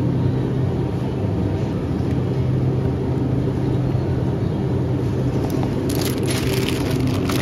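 Steady mechanical hum of a supermarket's refrigerated drinks cabinet, holding one pitch. Near the end a run of clicking and rustling handling noise as a hand brushes close past the phone.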